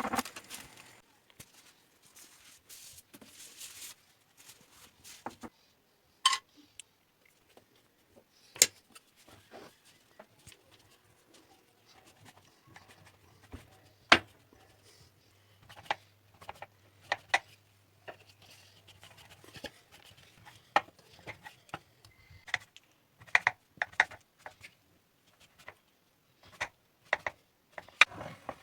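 Irregular sharp clicks and knocks of kitchen utensils and dishes being handled, a few every couple of seconds.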